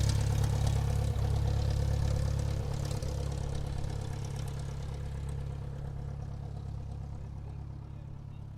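Airplane engines running at low taxi power, a steady hum with a hiss above it, the level falling steadily throughout.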